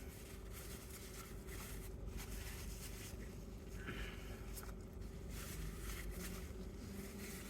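Quiet chewing and small mouth and handling noises while eating a McDonald's McDouble, over a faint steady hum.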